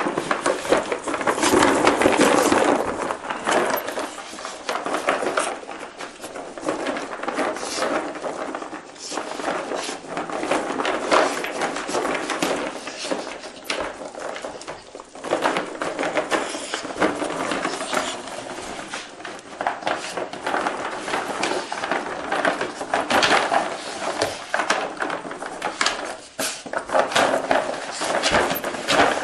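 Wine corks rattling and clattering against each other and the sides of a plastic box as a dog roots through them with its snout, searching for hidden food. A continuous dense rattle of many small knocks, loudest in the first few seconds.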